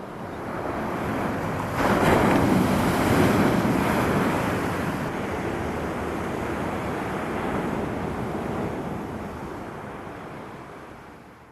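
Ocean surf: a wave breaks about two seconds in and washes up, then the rush slowly dies away, fading out near the end.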